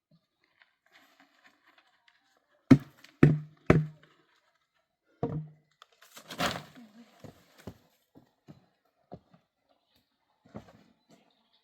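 Four heavy thuds of something hard being knocked or struck, then a short scraping rustle and a few scattered light knocks.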